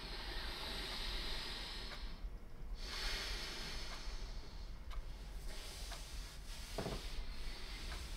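A man's slow, deep breaths, each a long hiss that swells and fades, over a low steady hum.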